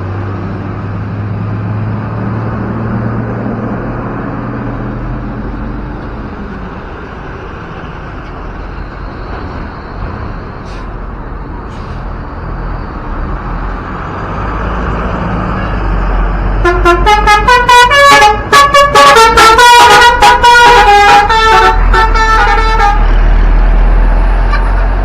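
Bus engine and road noise, then after about 17 seconds an Indonesian 'telolet' Basuri musical multi-tone bus horn plays a quick melody of short stepped notes for about six seconds. It is the loudest sound, followed by a deeper engine rumble.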